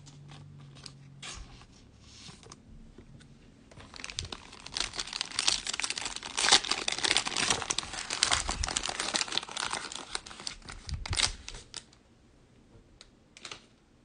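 A cellophane-wrapped Donruss basketball card pack being torn open and crinkled by hand. The crackling starts about four seconds in, is loudest midway and stops about three seconds before the end.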